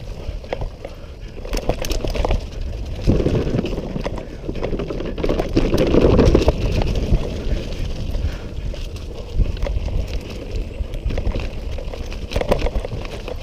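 Mountain bike rolling fast down a dirt trail: tyres crunching over leaves and dirt, with a constant rattle of many small clicks and knocks from the bike. It is loudest around the middle, as the wheels run over a bamboo-slat bridge.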